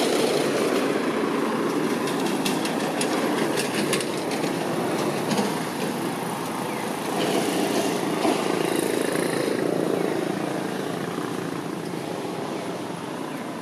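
Steady outdoor background noise, with scattered faint clicks a few seconds in.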